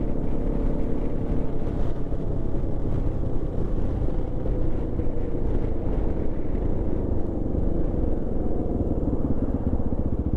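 Adventure motorcycle engine running at steady road speed, heard from the rider's seat with wind rush over it. Near the end the engine note turns into a slower, distinct pulsing as the bike slows to turn off the road.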